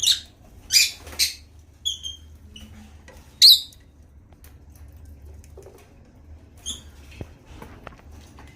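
African lovebirds giving short, sharp, high-pitched chirps. The calls come singly and in quick pairs through the first half, the loudest about three and a half seconds in, with one more a few seconds later.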